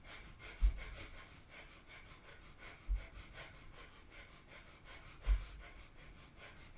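Breath of fire: rapid, rhythmic, forceful exhales through the nose, pumped from the navel, about three a second. A dull low thump sounds about every two seconds.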